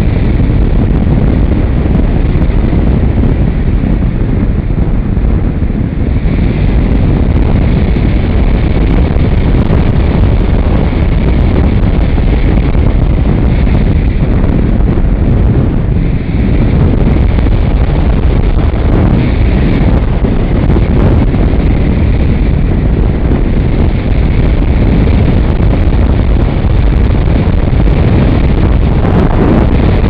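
Airstream rushing over and buffeting the microphone of a camera mounted on a model plane's wing in flight, loud and steady, with a faint higher whine from the electric motor coming and going.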